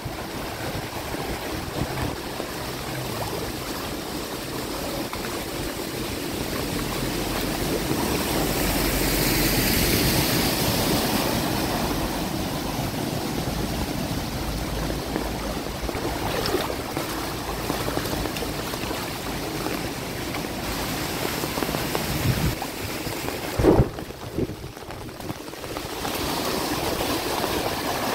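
Rain and running floodwater in a flooded street, with vehicles passing through the water. The wash swells for a few seconds near the middle, and a short thump comes about three-quarters of the way through.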